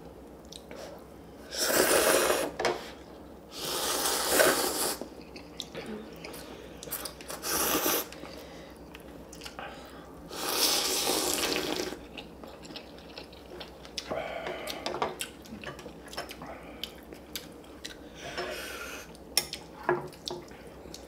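Instant ramen noodles being slurped: four loud slurps of about a second each in the first twelve seconds, then a few shorter, quieter ones.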